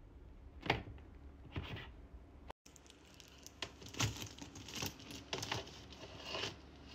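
Leather handbags being handled and set on a wooden shelf: a series of short rustles and light knocks from bag bodies, straps and fittings, with a brief break about two and a half seconds in.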